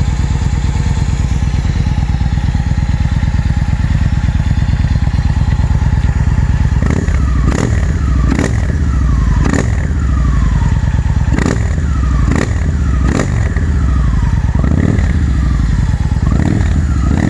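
2009 Victory Hammer S V-twin idling. From about seven seconds in, the throttle is blipped repeatedly, roughly once a second, each rev jumping up and falling back to idle.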